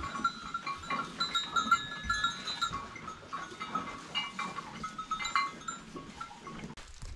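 Livestock barn sounds: many short, high chirping or peeping tones, thinning out after about five and a half seconds, mixed with scattered small knocks and rustles.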